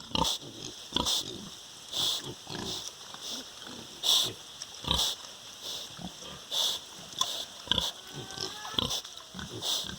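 Pigs grunting: a string of short, abrupt grunts at an uneven pace, about one or two a second.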